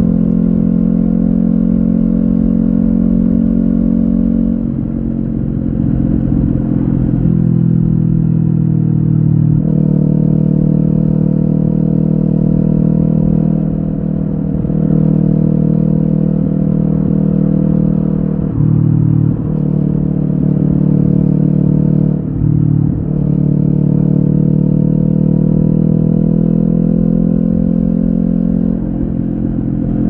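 Kawasaki Ninja 400's parallel-twin engine through an Akrapovic carbon slip-on exhaust without its dB killer, running at steady revs. The note steps up in pitch about a third of the way in and dips briefly twice past the middle.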